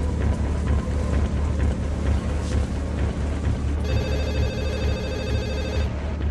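Tense background music with a low pulsing beat; about four seconds in, a mobile phone rings with a buzzy electronic tone for about two seconds.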